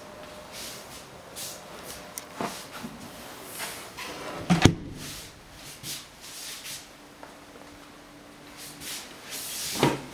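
An interior door being handled in a small room: soft knocks and rustles, a sharp clunk about halfway through, and another knock near the end.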